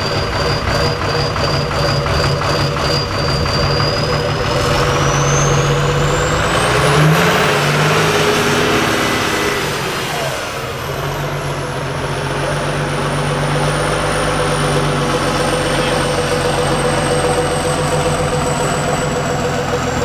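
Engine of a ZIL six-wheel-drive trial truck pulling slowly through a ditch, with revs climbing about six seconds in and dropping back near ten seconds. A thin high whine climbs with the revs and then slowly falls away.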